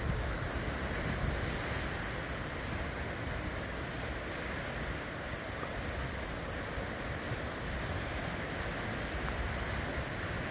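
Steady wash of ocean surf around rocks, with wind rumbling on the microphone.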